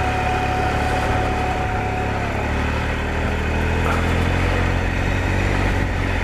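Triumph Explorer adventure motorcycle's three-cylinder engine running at low revs. A little over two seconds in, its higher tone dips slightly, and after that the low engine note comes through fuller and steady.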